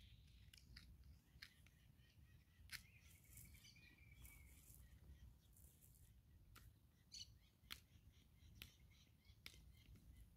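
Near silence, with faint, scattered clicks and a faint drawn-out bird call about three seconds in.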